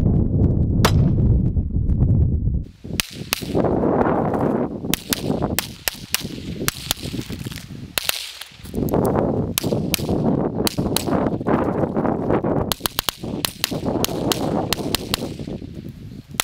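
Gunshots: a single shot about a second in, then a long string of shots, several fired in quick succession, over a steady low rumbling noise.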